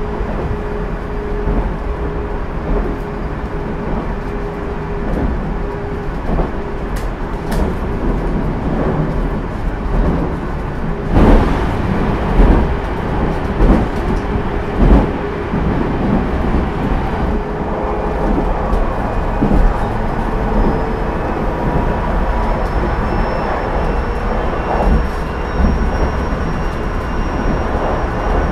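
Running sound inside a JR Central 373 series electric multiple unit's motor car, KuMoHa 373-13, at speed: wheels on rail and motor hum. A run of heavy wheel knocks comes about halfway through. A faint whine rises slowly in pitch in the second half.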